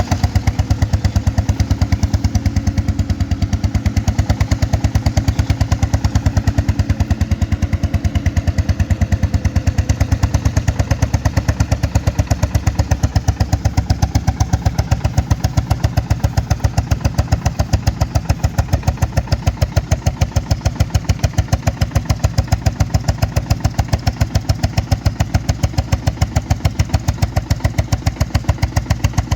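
Bulldog tractor's single-cylinder engine running steadily under load while pulling a plough, with an even, rapid train of exhaust beats, several a second.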